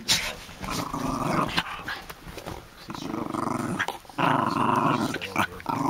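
Small terrier-type dogs play-fighting, growling in several long, rasping growls about a second each with short breaks between them.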